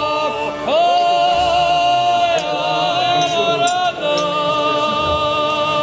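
A group of voices singing a cappella in several parts, holding long chords that begin about a second in and shift to new notes about four seconds in.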